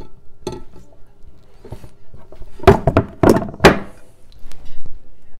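A metal bundt cake pan and a ceramic plate knocking together as the pan is flipped over onto the plate. A few light clicks come first, then three loud knocks in quick succession a little under halfway through.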